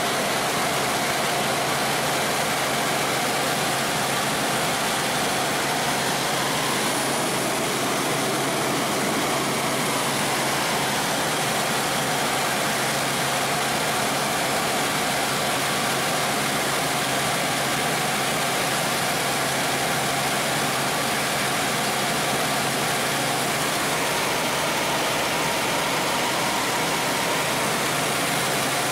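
Helicopter in flight heard from inside the cabin: a steady, loud rush of rotor and turbine noise with a constant hum.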